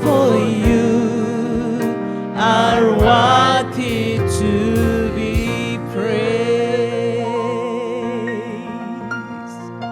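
Gospel worship music: a singer holding long, wavering notes in three phrases over sustained keyboard chords.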